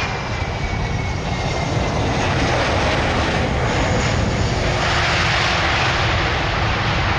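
Airbus A330-200F freighter's twin jet engines coming in to land, passing close by: a loud, steady engine noise with thin whining tones that slowly fall in pitch. The noise swells about five seconds in.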